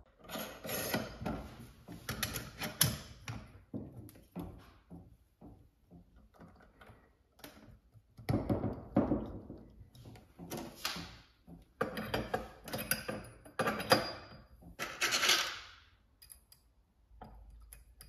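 Irregular clicks, knocks and scrapes of metal parts being handled as a chrome handle is fitted onto the brass cartridge spindle of a concealed thermostatic shower valve. The sounds come in bursts, with a quieter stretch a few seconds in.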